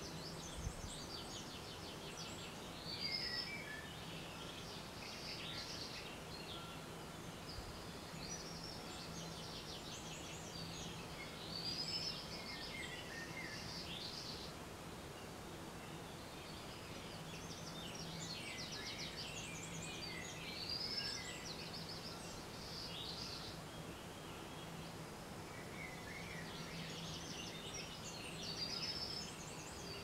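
Songbirds singing in the early-morning chorus: a running chatter of chirps and trills, with a louder song phrase about every nine seconds. A faint steady low hum lies underneath.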